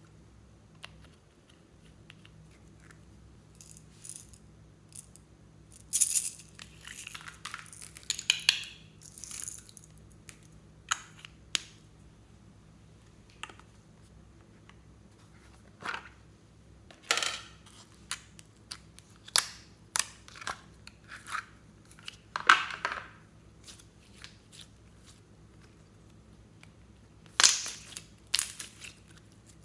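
Handling a plastic slime container and slime: scattered sharp clicks and short crackling rustles. Near the end, sticky crackling squishes as slime is squeezed in the hands.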